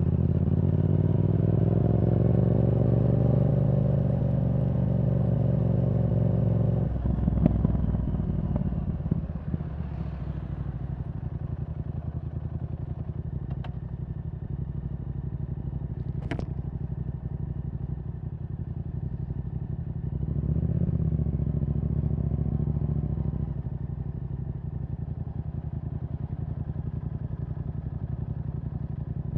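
Yamaha R7's parallel-twin engine through a Yoshimura R77 exhaust with the dB killer removed, pulling under throttle with its pitch slowly rising, then dropping off sharply about seven seconds in with a few sharp pops as the throttle closes. It then runs lower and steadier, with a short throttle rise around twenty seconds in.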